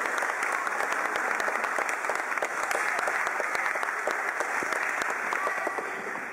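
Applause: many hands clapping together, dying away near the end.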